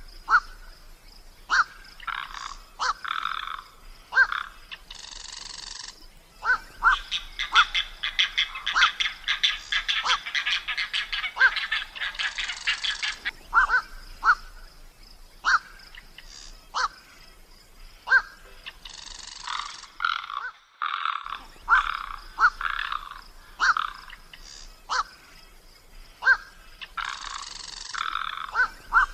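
Frogs croaking: many short, repeated croaks, with a stretch of fast rattling pulses about seven to thirteen seconds in.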